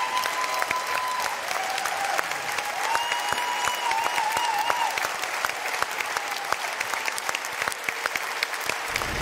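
Studio audience and judges applauding: dense, continuous clapping, with a few high sliding calls over it.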